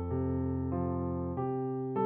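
Background music: held chords, moving to a new chord about every two-thirds of a second.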